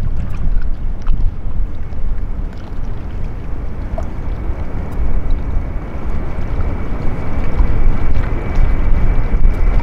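Wind buffeting the microphone over the distant rumble of a jet airliner. A steady high whine joins in and grows louder in the second half as the jet comes closer.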